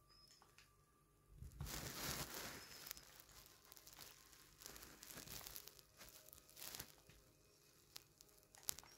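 Fabric rustling and crinkling in several bursts, loudest about two seconds in, with a sharp click near the end.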